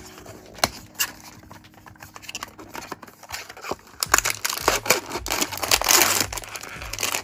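Cardboard box flaps being pried open, with light taps and scrapes, then from about four seconds in a foil bag crinkling loudly as it is pulled out and torn open.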